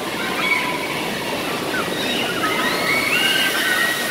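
Steady rush of falling and splashing water from a water-park play structure, with children's high-pitched shrieks and shouts over it from about two seconds in. Near the end, the giant tipping bucket's water crashes down onto the crowd.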